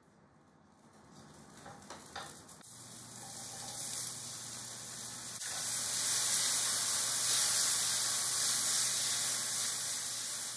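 Garlic and halved cherry tomatoes sizzling in olive oil in a frying pan over high gas heat. The sizzle starts faint about a second in and grows louder, with a few clicks around two seconds in, then holds steady.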